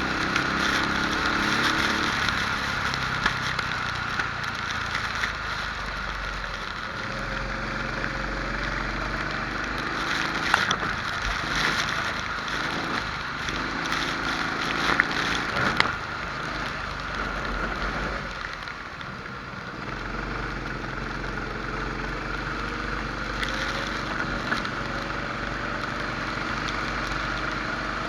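Rental kart engine running hard, its pitch rising along the straights and dropping off into the corners, over a steady rushing noise, with a few sharp knocks.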